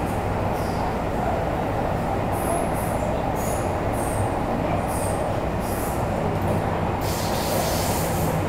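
Metro-Cammell M-Train electric multiple unit heard from inside a car while running between stations: a steady loud rumble of wheels on rail, with short high-pitched wheel squeals about once a second. About seven seconds in a louder hiss joins the rumble.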